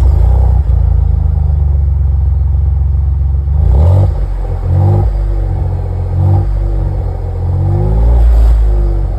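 Ford Bronco engine breathing through an aftermarket performance exhaust with quad tips, idling just after start-up. It is revved briefly four times, each rev rising and falling back to idle, the last one longest.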